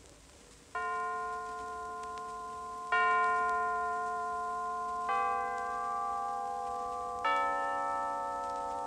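Bells struck slowly, one note about every two seconds, four strokes at different pitches, each left ringing into the next: a scene-change interlude in a radio play.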